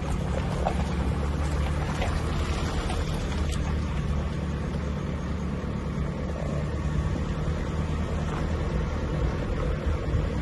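Steady low engine and road rumble heard from inside a slowly moving vehicle, with a few faint knocks and rattles.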